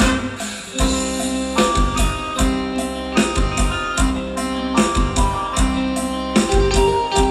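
Amplified dance music with a steady drum beat about twice a second under sustained melodic instruments.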